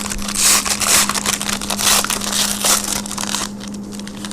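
Plastic wrapper of a trading card pack crinkling and rustling as it is torn open and handled, in several loud rustles, over a steady low electrical hum.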